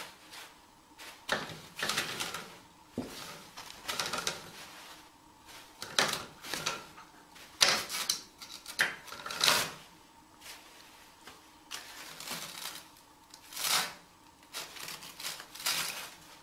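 Toilet paper rustling and crinkling in irregular bursts as a kitten paws at it and pulls it off the roll.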